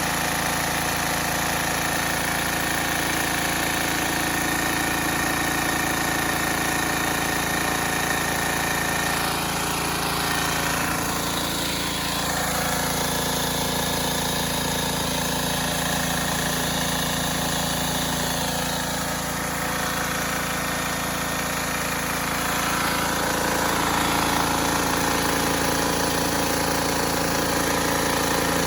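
Troy-Bilt gas pressure washer's small engine running steadily, its note shifting slightly about 11 seconds in and getting a little louder near the end.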